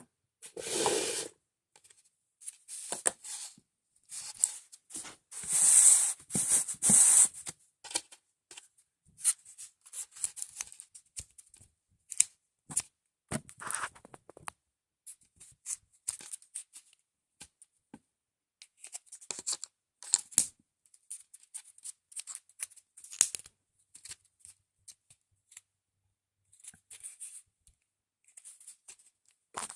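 Toy packaging being unwrapped and handled: intermittent crinkling and tearing with small clicks and rustles. The loudest tearing comes about a second in and again around five to seven seconds in.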